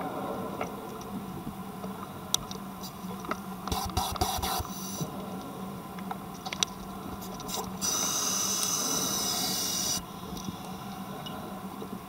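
Scuba diver's regulator breathing heard underwater: a noisy rush with clicks about four seconds in, and a steady hiss lasting about two seconds that starts and stops sharply about eight seconds in. A low steady hum runs underneath.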